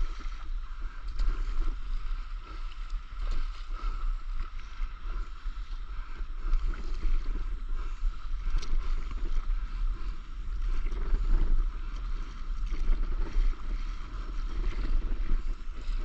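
Wind rumbling on an action camera's microphone over water sloshing and splashing around a stand-up paddleboard being paddled on the open sea.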